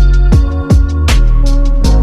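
Loud electronic background music with heavy bass and a steady beat.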